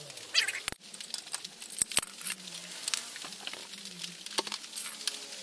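Scattered metal clinks and sharp knocks from a lug wrench and loosened lug nuts as a car wheel is taken off, with nuts dropping onto concrete.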